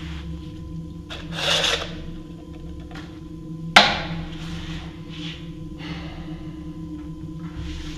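Rubbing and scraping noises with one sharp knock a little before the middle, over a steady low hum.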